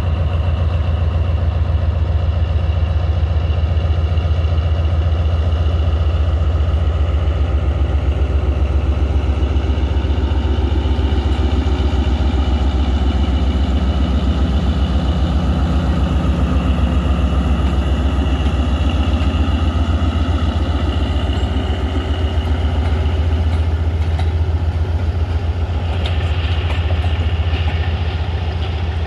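Diesel-electric locomotive engine (ZCU-30) running steadily with a deep, rapid throb. Near the end, a higher hiss is added.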